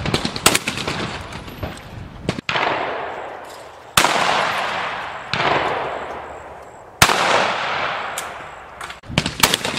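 A string of shotgun shots at a clay target range, about six in all, a second or two apart. Each report is sudden and trails off slowly over a couple of seconds.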